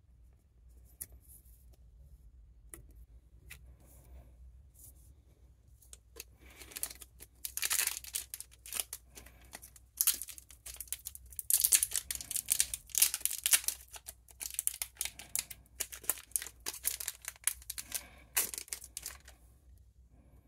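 Plastic card packaging torn open and crinkled by hand, in loud bursts over most of the second half, after a few light taps of cards being handled.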